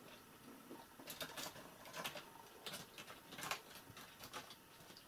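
A kitten's claws scratching and catching on a wooden bed frame as it climbs: faint, irregular scratches and taps, several in quick clusters.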